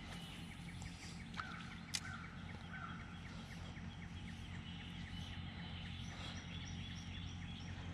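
Faint outdoor ambience: a steady low hum, with a bird giving three short calls about two seconds in over a run of rapid ticking, and two light clicks.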